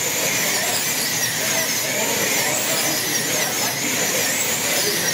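Several wing-car slot cars racing round the track together, their electric motors whining, the pitch rising and falling as they slow and speed up through the lap.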